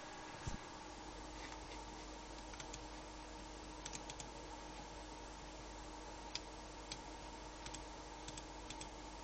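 Sparse light clicks, about a dozen at irregular spacing, over a steady electrical hiss and faint hum, with one dull low thump about half a second in; the clicks fit someone working a computer's keys or mouse buttons.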